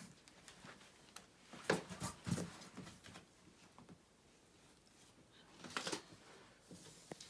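Scattered handling noises of TV stand and parts being moved and fitted: light knocks, clicks and rustles, loudest about two seconds in and again near six seconds.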